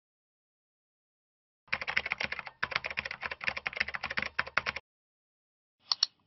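Computer keyboard typing sound effect: a quick run of key clicks lasting about three seconds, with a brief break partway through, followed about a second later by a single mouse click.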